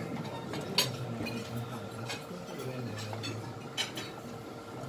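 Glasses and cutlery clinking in a club room between songs, with a couple of sharp clinks about a second in and near the end, over a faint steady hum.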